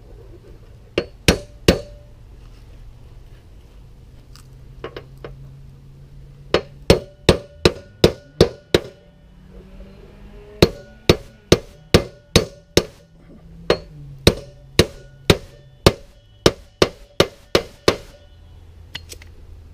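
Claw hammer tapping a bearing driver to seat a roller bearing in a Hustler Raptor SDX mower-deck spindle housing. Sharp metallic strikes come in runs of several, about two to three a second, with short pauses between the runs.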